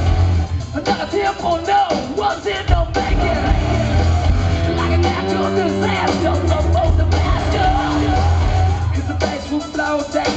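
Live rock band playing loud through the PA, with drums, electric guitar and yelled, sung vocals, heard from within the audience.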